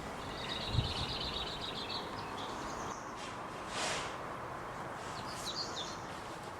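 Small birds chirping, a rapid run of high notes in the first couple of seconds and scattered calls later, over a steady outdoor background hiss. A short low thump comes just under a second in.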